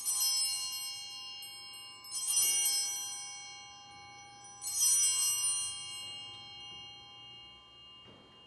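Altar bells rung three times, a little over two seconds apart, each ring a bright cluster of high tones that fades slowly. This is the signal for the elevation of the consecrated host at Mass.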